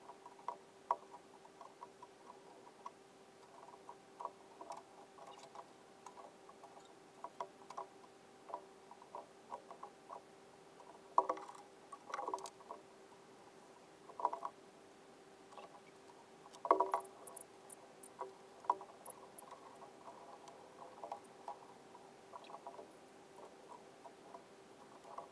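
Faint scattered clicks and knocks from handling a corrugated metal roofing sheet and clamps, a few louder knocks among them, over a steady faint hum.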